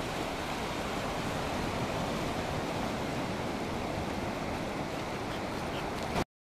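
Ocean surf washing onto a beach, a steady rush of noise that cuts off suddenly near the end.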